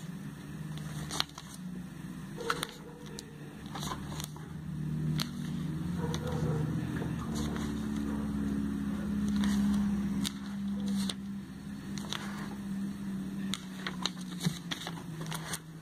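Glossy catalogue pages being turned and handled, with soft paper clicks and rustles. Under them runs a low droning hum that swells to its loudest a little past the middle and then fades.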